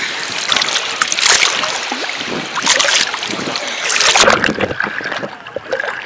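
Small sea waves sloshing and splashing right against a microphone held at the water's surface, coming in three loud surges about a second and a half apart, then easing off near the end.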